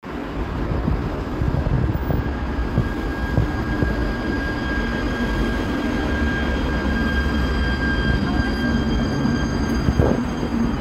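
Cologne Stadtbahn light-rail tram running, a steady low rumble with several thin high whines held over it, and a short knock about ten seconds in.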